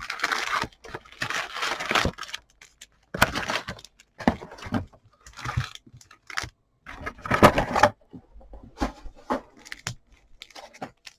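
Trading-card packaging being torn open and handled: irregular bursts of tearing, crinkling and scraping of cardboard and pack wrappers.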